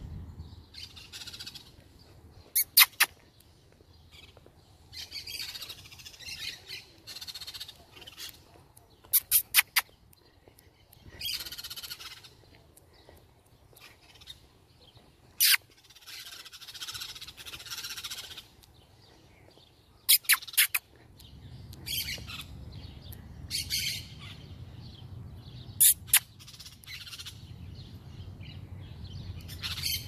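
A flock of wild parrots calling from the trees: loud, harsh squawks burst out about every five or six seconds, with quieter chattering between them.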